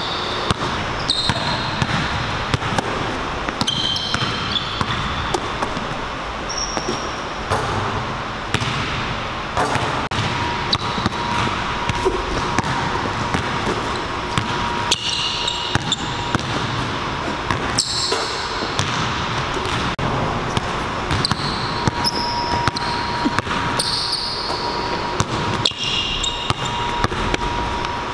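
Basketballs bouncing repeatedly on a hardwood gym floor during dribbling drills, with sneakers squeaking now and then.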